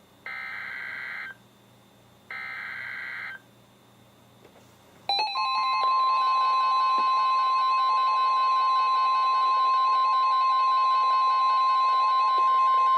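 Two bursts of EAS SAME digital header data, each a harsh warbling buzz lasting about a second, then quiet until about five seconds in, when the NOAA Weather Radio 1050 Hz warning alarm tone starts: a loud, steady high tone with several other steady tones sounding with it. The header and tone announce a flash flood warning.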